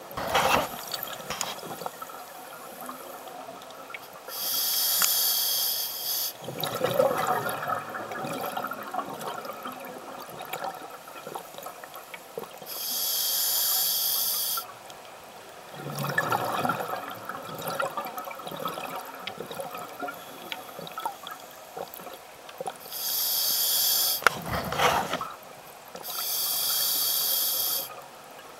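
Scuba diver breathing through a regulator underwater: four hissing inhalations of about two seconds each, with bursts of exhaled bubbles between them.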